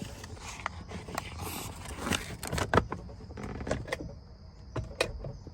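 Irregular clicks, knocks and rustling of things being handled inside a car's cabin, the sharpest knocks near the middle, over a faint steady high whine.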